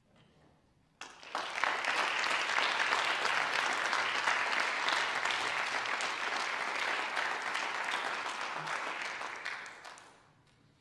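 Applause from many people clapping together, starting abruptly about a second in, holding steady and fading out near the end.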